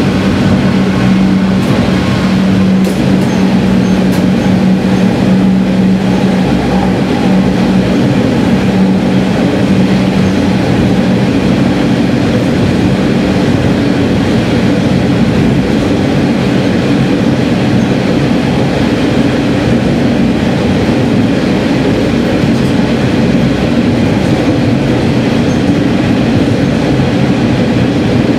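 A Sanriku Railway diesel railcar running along the line, heard from inside at the front: a steady, loud drone of engine and wheels on rail, with a hum that fades after about ten seconds.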